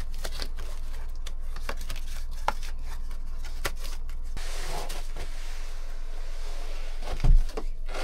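A cardboard box being unboxed to get at a roll of seamless photography backdrop paper. Scattered small clicks and crinkles give way to a stretch of rustling and scraping as the roll comes out, and there is one heavy thump about seven seconds in.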